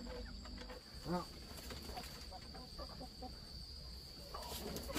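Insects calling in one steady, high-pitched tone, with a short rising-and-falling voice-like call about a second in and a few brief faint vocal sounds after it.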